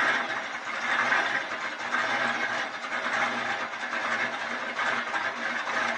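Twin-turbo 5.2-litre V8 of a 1999 Dodge Durango running at an uneven, choppy idle, not yet tuned.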